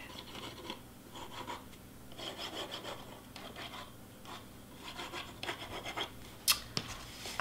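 Faint rubbing and scraping of cardstock as a folded paper box is turned in the hands and glue is squeezed along its flaps, with a short sharp tap near the end.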